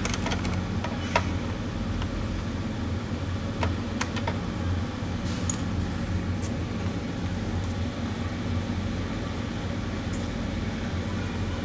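Scattered light clicks and taps as hands work at a Toyota MR2's side vent trim to pry it free, over a steady low hum.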